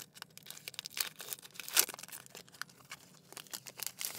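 Foil Pokémon booster pack wrapper being torn open and crinkled: a run of irregular short crackles and rips, the loudest about two seconds in.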